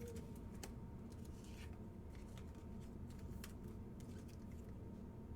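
Quiet handling noise: faint, scattered light clicks and rustles over a low steady hum.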